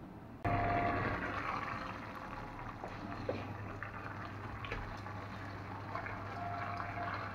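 Brussels sprouts in broth simmering in a frying pan, a steady bubbling hiss, with a few light knocks as chopped pak choi is tipped in by hand.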